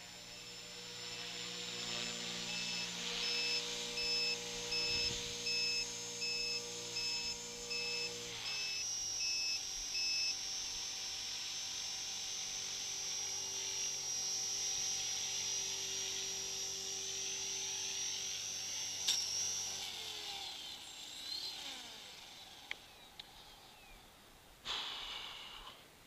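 Electric RC helicopter (T-Rex 450 clone) running, a steady motor whine and rotor hum. The pitch steps down about eight seconds in, holds, then winds down and fades as the rotor spools down a little after twenty seconds. A regular high beeping runs through the first ten seconds, and a short rustle sounds near the end.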